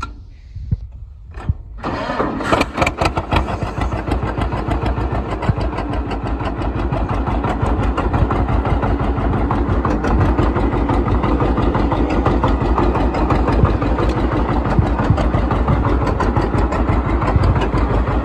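1952 John Deere 60's big 5.3-litre two-cylinder engine starting: a few knocks, then it catches about two seconds in and runs on with a steady, even pulse, growing a little louder over the next few seconds.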